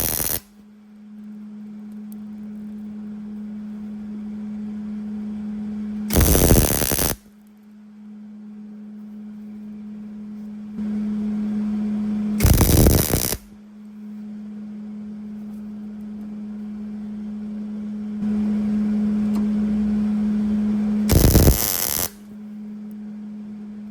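Welder laying short tack welds to fix a captive nut in place: three crackling bursts of about a second each, spaced several seconds apart, over a steady electrical hum from the welding machine.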